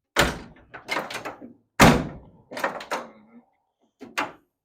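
A 1967 Pontiac Firebird's steel door being shut and worked on its freshly rebuilt hinges: a series of heavy thunks and knocks, the loudest a little under two seconds in.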